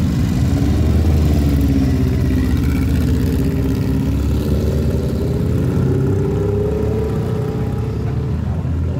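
Classic motorcycles riding off one after another, their engines revving and pulling away, the engine notes rising and falling in pitch.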